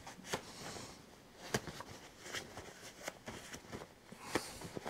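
A cloth rag rubbed over greasy hands: faint, scattered rustling with a few light clicks.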